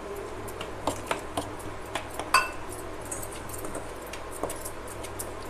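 Metal spoon clinking and scraping against a stainless steel bowl while stirring water into gram flour for a thick batter. The strokes come irregularly, with one louder ringing clink a little past two seconds in.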